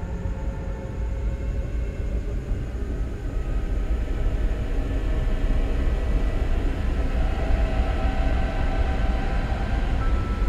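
Film-score drone: a steady low rumble with sustained higher tones that slowly swell louder through the second half.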